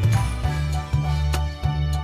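Background music with a steady beat and a bass line that shifts to a higher note about half a second in.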